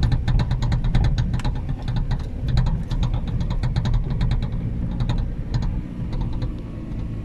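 Off-road vehicle driving on a rough dirt and gravel track, heard from inside the cab: a steady low engine and road rumble with frequent sharp clicks and knocks as it jolts over the bumps.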